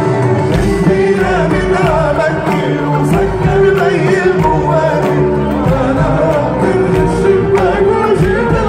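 Live Arabic pop song: a male singer with a string orchestra of violins behind him, the voice wavering through ornamented phrases over sustained strings and a bass line.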